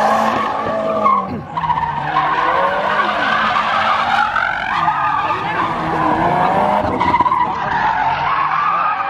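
A car drifting in circles: its tires squeal continuously against the pavement over the engine held at high revs.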